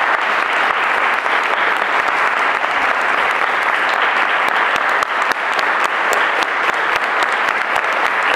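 Audience applauding: many people clapping continuously.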